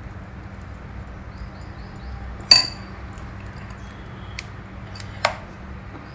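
A steel spoon clinking against a glass bowl of batter: one ringing clink about two and a half seconds in, then two lighter clicks near the end, over a low steady hum.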